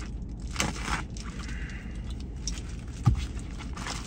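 Scraping and rustling of a package being opened by hand, with a short dull thump about three seconds in.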